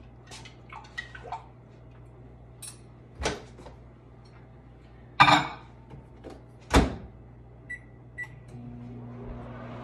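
Microwave oven being started: a few knocks and a door thud, two short keypad beeps, then the oven starts running with a steady hum near the end.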